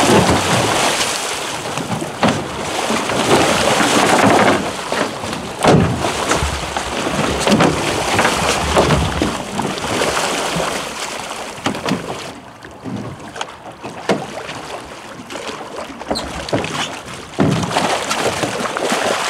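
Wind buffeting the microphone over sea water splashing against the side of a boat, with scattered knocks; the noise drops for a few seconds past the middle.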